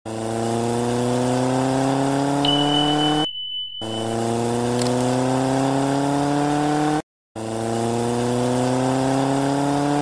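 Intro sound effect: an engine-like hum that rises slowly in pitch three times, each rise about three seconds long and cut off abruptly, with a short steady high beep during the first.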